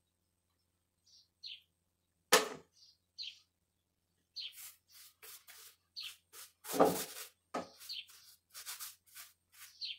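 Paintbrush dipped and knocked in a galvanized metal bucket of limewash and brushed over a plaster wall: scattered knocks, the loudest about two and a half and seven seconds in, and a run of quick scrubbing strokes in the second half. Short high chirps come between them.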